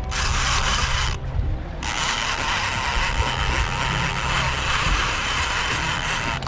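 Twin Suzuki outboard motors running with a steady low hum, under a hiss of wind and water. The hiss drops out briefly about a second in.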